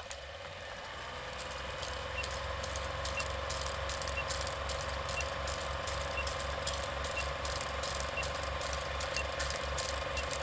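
A small mechanism running with a steady hum and rapid irregular clicking, with a faint short high beep about once a second.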